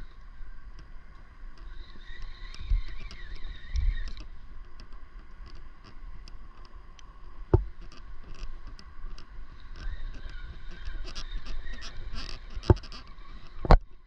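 Spinning reel being cranked to retrieve a lure, its gears giving a steady whirring whine that wavers in pitch with the cranking. Three sharp knocks come through it, the loudest near the end.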